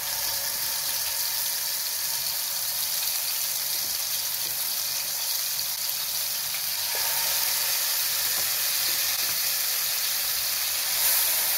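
Marinated chicken drumsticks sizzling in hot oil in a nonstick frying pan as pieces are laid in one by one. The steady sizzle grows louder about seven seconds in and swells briefly near the end.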